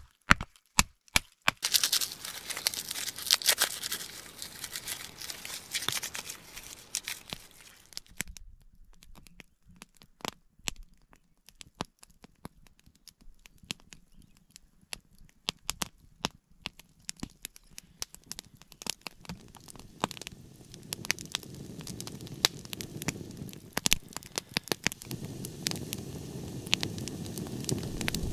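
Several sharp knocks of a knife being batoned into a small log to split it, then a few seconds of scraping and rustling. After that a kindling fire crackles with scattered pops, and its burning grows fuller and steadier in the last several seconds.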